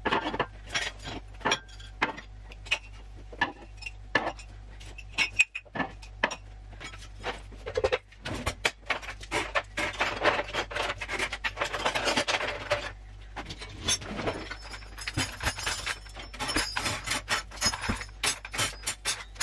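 Clean cutlery and dishes being put away from a dishwasher: knocks and clinks of metal pieces dropped into a kitchen drawer. They are scattered at first, then a busier run of clattering about halfway through.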